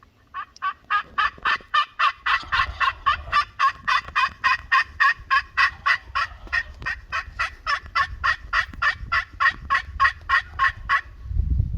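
A long, even run of turkey yelps, about four a second, stopping shortly before the end. Under it is a low rumble.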